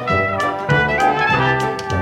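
Background music with trumpets and other brass over a steady beat.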